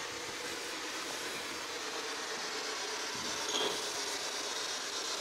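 Steady static hiss with no voices, with a brief short tone about three and a half seconds in.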